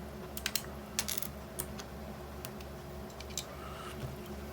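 Scattered light clicks and taps of a small plastic dashcam being handled as its SD card is pushed out of its slot, about a dozen sharp ticks at irregular intervals over a steady low hum.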